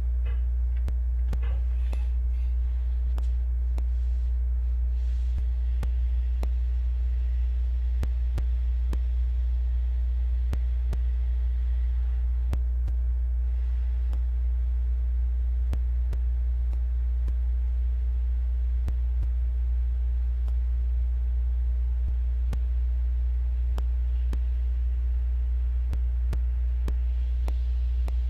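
Steady low electrical hum at an even level, with faint scattered clicks.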